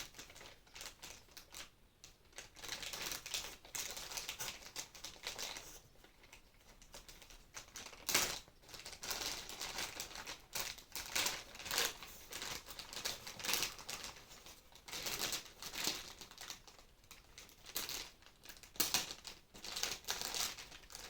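Plastic packaging crinkling and rustling as a boxed figure is unwrapped and handled, with irregular small clicks and taps.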